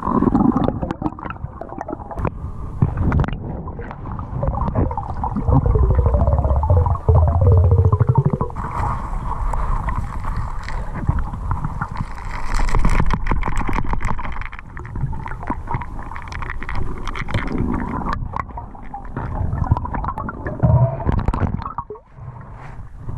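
Underwater sound picked up by a camera in its waterproof housing during a free dive in moving river water: a muffled, continuous rumbling and gurgling with scattered clicks and knocks, and a few wavering tones about a quarter of the way in.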